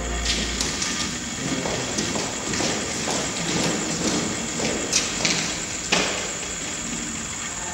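Footsteps of boots on a gritty floor, with scattered taps and knocks at uneven spacing; two sharper knocks stand out about five and six seconds in.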